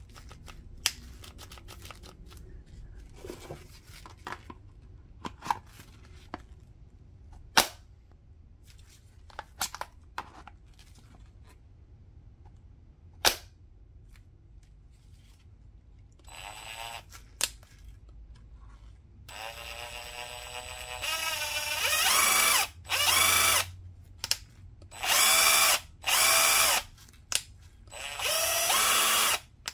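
Wesco 20V cordless brushed 1/2-inch impact wrench free-spinning with no load on its variable-speed trigger. A few light handling clicks and knocks come first. About two-thirds of the way in, the motor whines up as the trigger is squeezed, then runs in about six short trigger pulls near the end.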